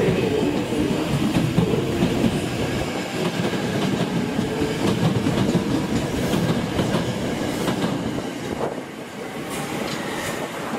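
Tokyo Metro 2000 series train pulling out of an underground station and running past, wheels clacking over the rail joints. The sound fades about eight seconds in as the train clears the platform.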